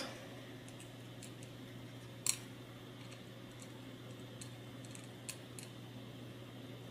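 Faint scattered clicks and ticks of a small screwdriver and small plastic and metal parts being handled while a tiny bolt is tightened on a plastic camera mount, with one sharper click a little over two seconds in.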